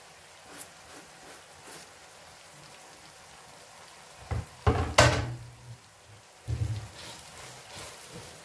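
Kitchen handling sounds: light taps as chopped parsley is scraped off a cutting board into a pot of spaghetti with a wooden spoon, then a few loud knocks and a clatter about halfway through and another thud a little later. Quieter stirring of spaghetti with the wooden spoon in a stainless steel pot follows.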